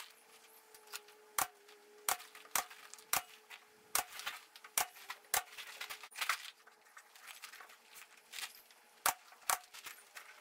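A string of sharp clicks and knocks, roughly one or two a second and unevenly spaced, as spruce boards and hand tools are handled on a wooden workbench, over a faint steady hum.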